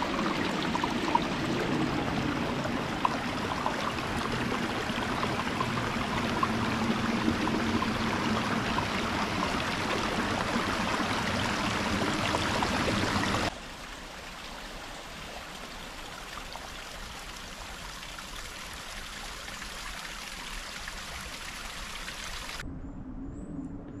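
Small woodland stream trickling and splashing over stones, heard close up. About halfway through it cuts off abruptly, leaving a much quieter, steady background hiss.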